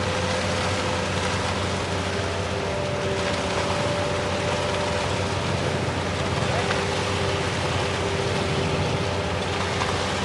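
A heavy engine running steadily, with a steady whine over the rumble.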